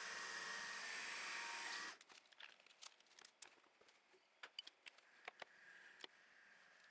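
Milling machine running as a drill bit cuts into an aluminium plate, a steady noise that cuts off suddenly about two seconds in. Faint scattered clicks follow.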